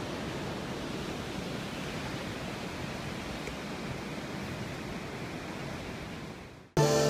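Steady roar of Athabasca Falls, water rushing through a rock canyon. It fades out near the end and cuts to guitar music.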